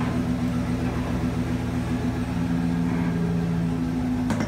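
Pickup truck engine idling steadily, with a short knock near the end.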